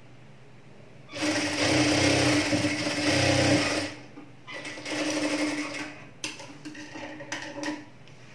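Industrial sewing machine stitching a seam in two runs: a loud burst of about three seconds starting about a second in, then after a brief stop a shorter, softer run. A few light clicks follow near the end.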